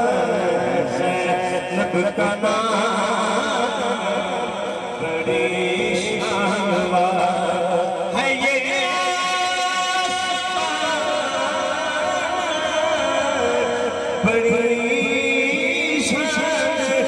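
Male voices chanting a naat in long, held, wavering notes, with several voice lines overlapping.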